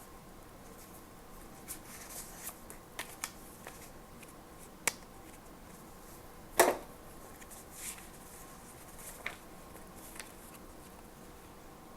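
Paper and stationery being handled by hand: scattered light rustles and small taps, with one sharper knock about six and a half seconds in.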